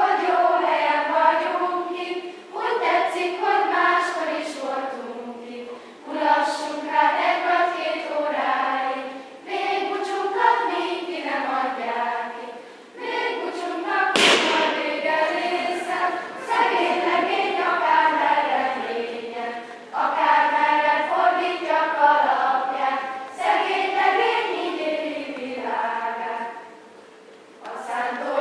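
Children's choir singing, phrase after phrase with short breaths between. About halfway through, a single sharp knock cuts through the singing.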